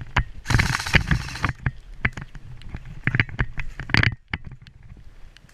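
Footsteps and rustling of clothing and gear moving through undergrowth: irregular snaps and knocks, with a dense brushing rustle for about a second near the start, dying down after about four seconds.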